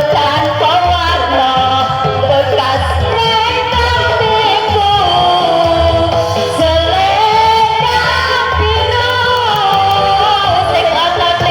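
A singer's voice over backing music with a steady bass beat.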